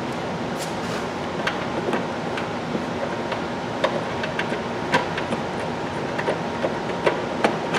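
Plastic trunk trim panels and clips being handled and pried loose: scattered sharp clicks and taps over a steady background hiss.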